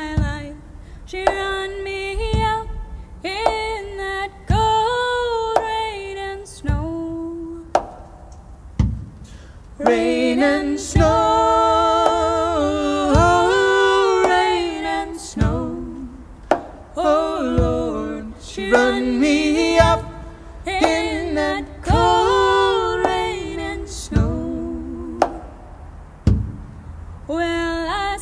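A woman singing a traditional folk song in phrases, mostly unaccompanied, joined in close harmony by a man's voice in the middle of the passage.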